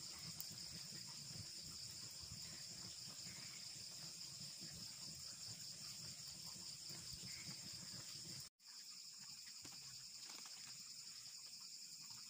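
Faint, steady chirring of crickets, with a low rumble from a pot of water boiling with taro leaves. The rumble stops at a brief dropout about eight and a half seconds in, and the crickets carry on.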